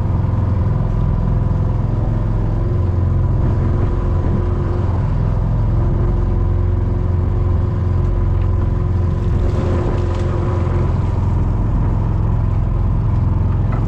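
Small fishing boat's engine running with a steady low rumble while a pot hauler lifts a lobster pot aboard; a steady whining tone from the hauler comes in about two and a half seconds in, breaks off briefly around five seconds, and stops near eleven seconds.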